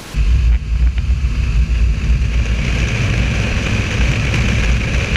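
BMW R1200GS boxer-twin motorcycle engine running under way, coming in suddenly about a quarter second in and then loud and steady.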